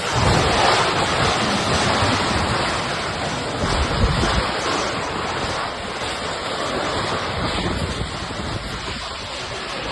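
Tornado winds rushing and buffeting the phone's microphone in heavy, rumbling gusts that surge and ease.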